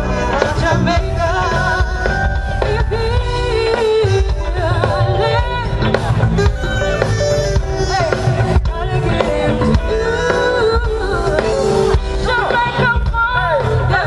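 Live funk band playing: a saxophone carries the melody over a drum kit and a steady bass line.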